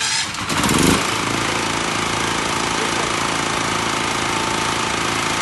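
10 kVA petrol generator set, just electric-started, climbs to speed in the first second and then runs steadily at an even, loud level.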